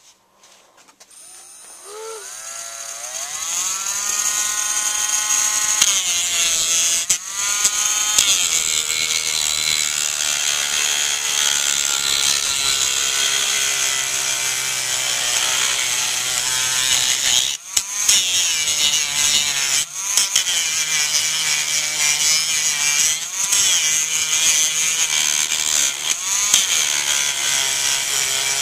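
Dremel rotary tool spinning up with a rising whine over the first few seconds, then running at high speed as it grinds polymer off a shotgun's plastic fore-end: a steady high whine over a grinding hiss, briefly easing off a few times.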